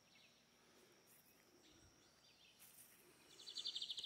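Near silence: faint outdoor background. About three seconds in, a fast, high, evenly pulsed trill starts up.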